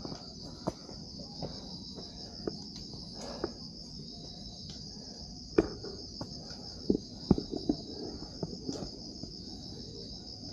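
Steady high-pitched chorus of night insects such as crickets. Scattered short taps and knocks come over it, the loudest a few in quick succession past the middle.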